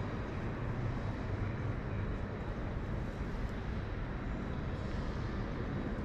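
Steady low rumble of background noise in a large hall, with a faint steady high whine above it and no distinct events.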